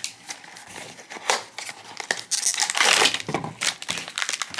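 A cardboard blind box is handled and its silver foil inner bag is pulled out and crinkled in the hands. The crinkling gets louder and busier about halfway through.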